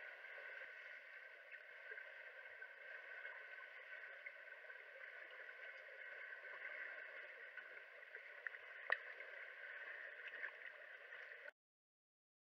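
Swimming-pool water heard underwater, a steady muffled rushing and bubbling from swimmers' strokes, with one sharp knock about nine seconds in. The sound cuts off suddenly near the end.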